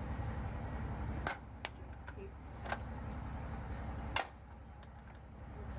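Tile-factory machinery running with a steady low hum, broken by three sharp clacks about a second and a half apart, with a few lighter ticks between them.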